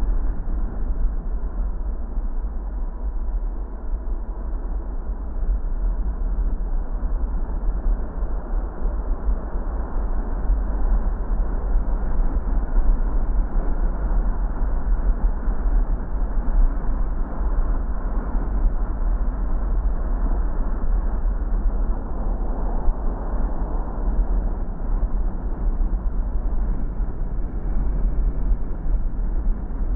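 Car driving: steady road and engine noise with a strong low rumble and no sudden events.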